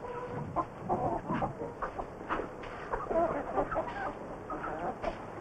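A flock of domestic hens clucking, many short calls overlapping one another, as grain is scattered for them.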